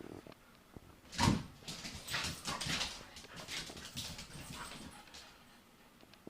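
Two puppies playing, with a loud burst of sound just over a second in followed by a string of shorter, noisier sounds that die away toward the end.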